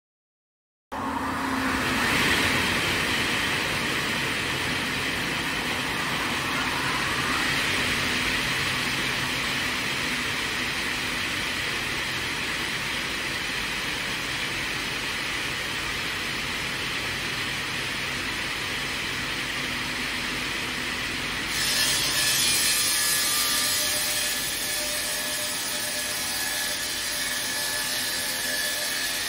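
Multi-blade log rip circular saw, with upper and lower circular blades, running and ripping a log lengthwise: a steady, loud sawing noise that cuts in suddenly about a second in. About two-thirds of the way through it turns brighter and louder for a couple of seconds, with a steady high whine, then settles.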